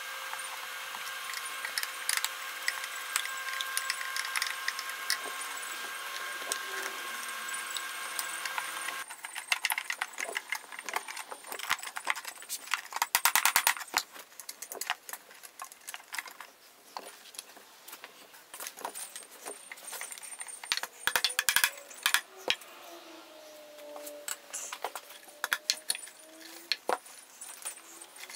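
An antique oak dining chair being taken apart by hand: scattered clicks, knocks and clatter of loosened wooden parts and metal tools as the glued apron joints are worked free, with a few short creaks near the end. A steady hum runs under the first nine seconds or so and stops abruptly.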